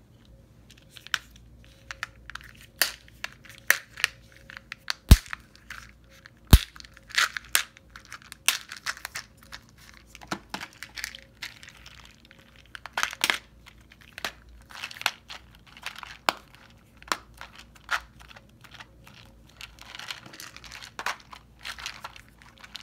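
Clear plastic weekly pill organizers being handled while prescription pills are sorted into them: an irregular run of plastic lid clicks, snaps and pill rattles, with two sharp snaps about five and six and a half seconds in.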